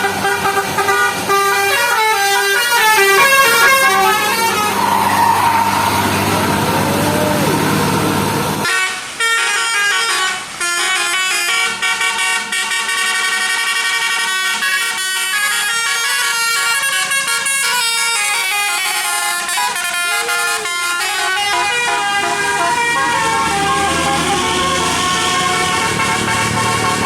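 Indonesian bus 'telolet basuri' multi-trumpet air horn playing a melody, its notes stepping up and down in pitch. There is a low rumble under the horn for the first nine seconds; it drops away abruptly there, and the horn tune carries on.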